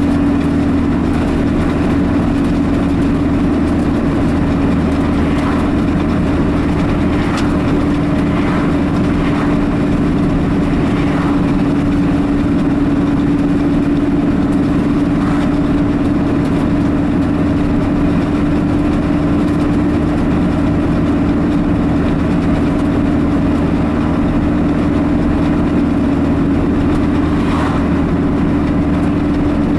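Steady engine drone and tyre and road noise heard from inside a car's cabin while cruising, with a few faint swishes of oncoming vehicles going by.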